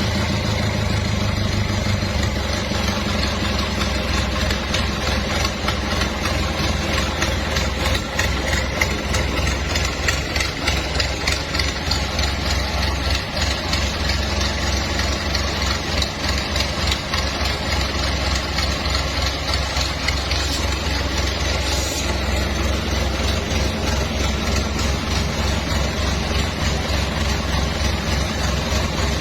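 Freshly serviced Mitsubishi PS100 diesel engine running steadily at idle with a rapid, even diesel clatter. Its idle settles slightly lower about two seconds in.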